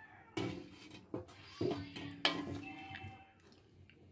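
A wooden ladle knocking and scraping against an aluminium wok, four or five soft knocks in the first two and a half seconds, one leaving a brief metallic ring.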